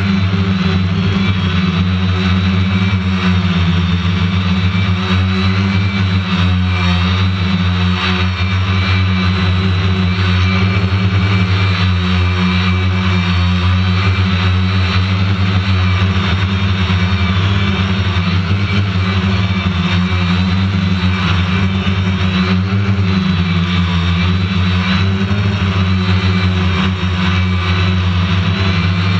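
Quadcopter drone's motors and propellers buzzing steadily in flight, the pitch wavering slightly up and down.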